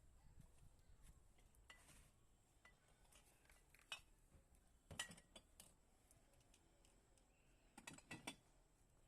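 Faint, scattered clinks and knocks against quiet room tone: a sharp click about four seconds in, another about five seconds in, and a short cluster near the end.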